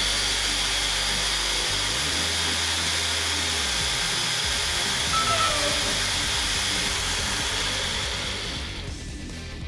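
Kit 540 brushed motor of a Tamiya TT-01 Type-E chassis, driven by a Tamiya TEU-105BK ESC, running flat out on a roller speed-test rig at about 22 km/h: a steady high motor and drivetrain whine that stops near the end.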